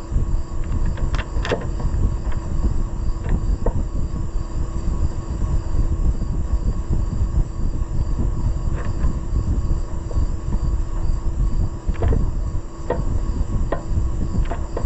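A steady low rumble with a constant hum, and scattered light clicks and taps. The sharpest clicks come about a second in, and a cluster comes near the end.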